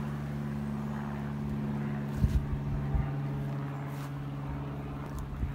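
A steady engine drone holding one pitch, with a few low thumps about two and three seconds in.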